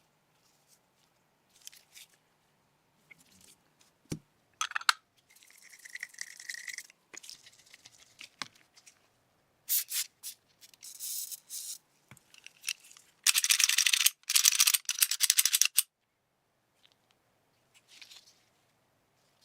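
Hands working on a steel 1911 pistol: scattered small metal clicks and knocks, with short spells of fast scraping or scrubbing, loudest in two runs about two-thirds of the way through.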